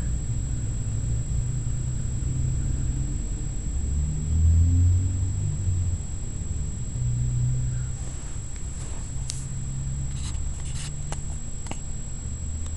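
A steady low rumble that swells about four seconds in, with a few light clicks in the second half.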